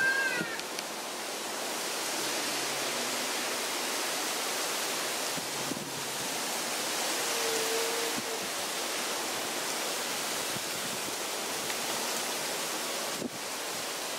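Strong wind rushing through the fronds of coconut palms, a steady, even rushing noise with no let-up.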